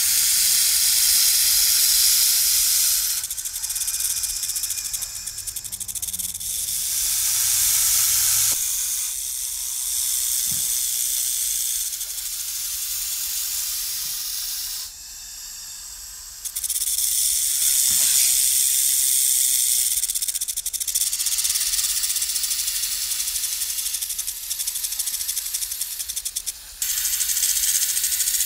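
Snake hissing, a loud high-pitched hiss that comes in long, repeated breaths several seconds each, with brief lulls between them and a longer dip about halfway through.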